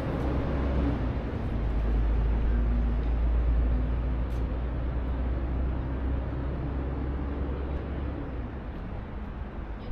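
Street traffic: a nearby vehicle engine's steady low rumble over road noise, dropping away about eight seconds in.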